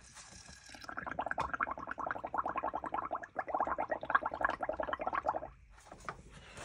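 Blowing through a drinking straw into a tub of bubble-paint mixture: a rapid bubbling gurgle in two long runs, with a short break just past the middle.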